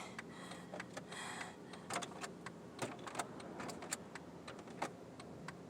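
Faint, irregular light clicks and ticks over a quiet background, with no steady rhythm.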